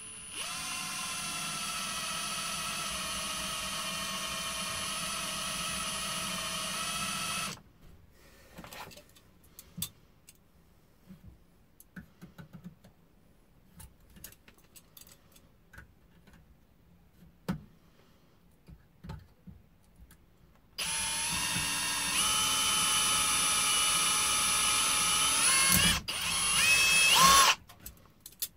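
Power drill boring into the metal end of a selfie-stick tube, in two runs of about seven and six seconds with a steady motor whine. Between them there are small clicks of handling the tube and pliers. Near the end of the second run the pitch dips and wavers as the bit loads up.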